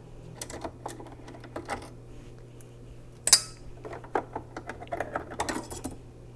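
Light clicks and taps of metal and plastic parts as the needle plate of a Brother LB5000S sewing machine is worked loose and lifted off. There is one sharp metallic clink a little past three seconds in.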